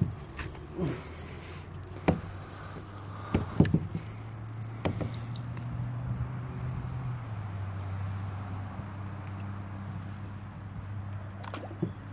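A few sharp, hollow knocks against a plastic kayak hull, over a steady low hum that drops in pitch about seven seconds in.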